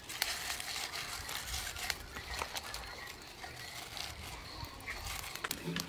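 Faint handling sounds: soft rustles and scattered light clicks as hands push herb stalks into the cavity of a raw whole chicken.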